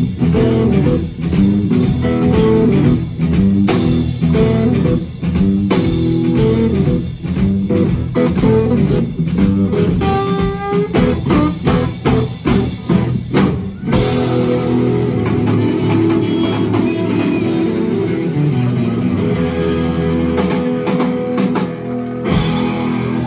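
Live blues-rock trio of two electric guitars and drums playing the song's closing bars with a driving beat. About two thirds of the way through, the beat stops and a final chord is held and left ringing for several seconds before the band stops right at the end.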